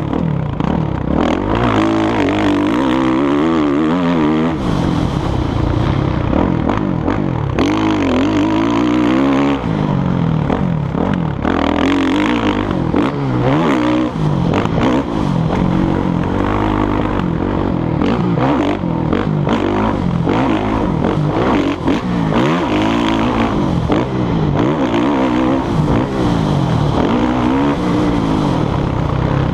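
Motocross dirt bike engine revving up and dropping back again and again as the rider accelerates, shifts and rolls off around the track, heard from the rider's helmet.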